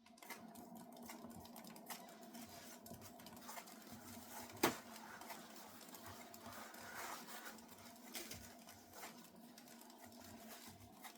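Paint-pour spinner turning a wet acrylic pour painting, with a steady whirring hum and light rattling ticks, and one sharper click about halfway through.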